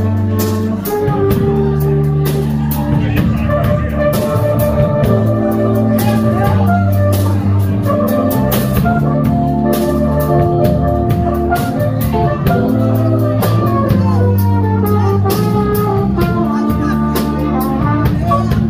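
Live jazz combo playing: electric bass lines and a drum kit with cymbals under a flugelhorn melody, with keyboard. The horn line has descending runs about two-thirds of the way through and again near the end.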